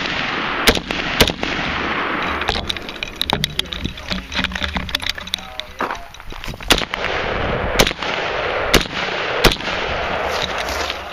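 AR-15 carbine shots fired singly at an irregular pace, about half a dozen loud cracks with many fainter shots between them, over a steady rushing noise.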